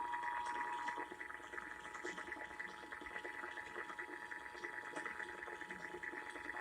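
Emergency Alert System two-tone attention signal (853 and 960 Hz) heard over a broadcast radio, a steady dual tone through heavy static hiss. It is loudest for about the first second, then carries on fainter.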